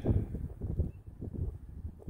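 A truck rolling slowly over a rough, rocky dirt road: an uneven low rumble broken by many small bumps.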